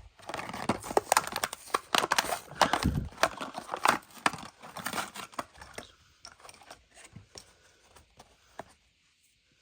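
A Hot Wheels blister pack being torn open, plastic bubble and cardboard card: a dense run of crinkling, crackling and tearing for about six seconds, then only a few scattered clicks.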